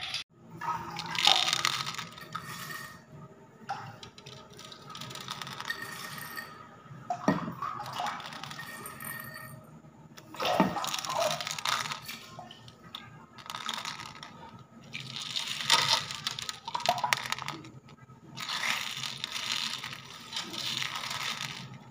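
Small coloured aquarium gravel stones clattering and clicking against a glass tank bottom as a hand stirs them through shallow water, in several separate bursts a few seconds apart.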